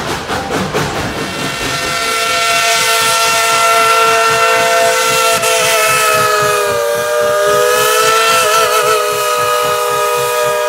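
Steam locomotive whistle (Tweetsie Railroad No. 12) blowing one long, sustained blast. It sounds as a chord of several tones, starting about a second in, sagging slightly in pitch and wavering briefly near the end.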